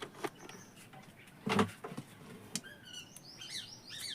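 Sharp clicks and a short clatter of tools and test leads being handled, the loudest about a second and a half in, then from about three seconds in small birds chirping in quick, repeated falling notes.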